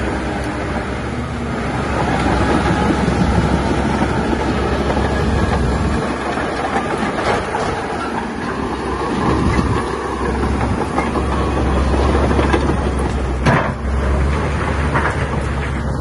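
Heavy earthmoving machinery working: a diesel engine running with a dense, steady mechanical clatter, and one sharp knock near the end.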